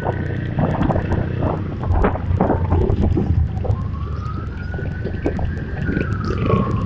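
Motorcycle engines running in a steady low rumble with wind noise on the microphone, while a siren wails, slowly rising and falling in pitch about four seconds in.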